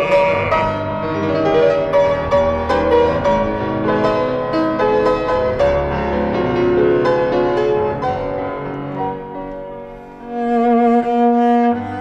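Instrumental interlude of a Russian romance: piano with cello and other bowed strings playing after the bass singer's held note ends about half a second in. The music dips briefly near the end and then swells with long low held string notes.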